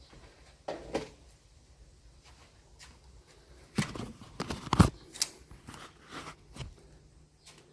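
Irregular knocks, taps and short scrapes of hand work on the ceiling, with the loudest cluster about four to five seconds in.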